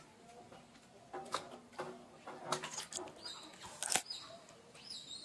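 Macaques scrambling around a water-filled clay jar: scuffs and sharp knocks and splashes starting about a second in, with short high squeaky chirps repeating in the second half.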